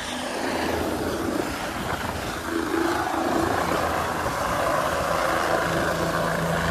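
Helicopter hovering low as it comes in to land, a steady rotor and engine noise that grows louder about halfway through.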